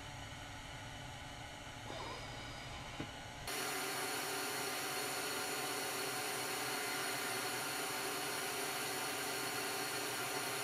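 Steady background hiss with no clear source and a faint click about three seconds in. About three and a half seconds in, it switches abruptly to a louder, brighter hiss.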